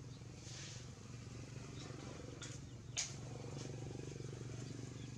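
A steady low machine hum, like a motor running, with a few faint ticks and one sharp click about three seconds in.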